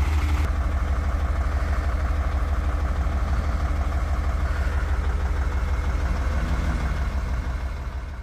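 Diesel engine idling at close range: a steady low rumble with a fast even throb, fading out near the end.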